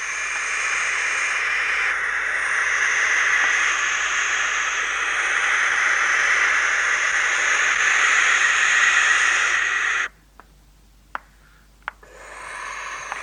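Barn owl giving a long, harsh rasping call. It stops suddenly about ten seconds in, a few faint clicks follow, and the rasping starts again near the end.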